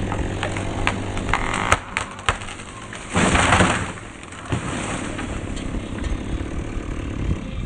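Chainsaw engine idling, a few sharp cracks of wood, then a loud crash of under a second about three seconds in, as a tree comes down.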